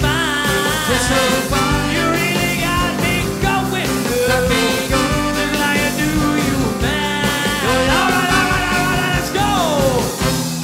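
Swing band music: a melody line with wavering, vibrato-like pitch over a steady bass and rhythm section, with a falling slide in the melody near the end.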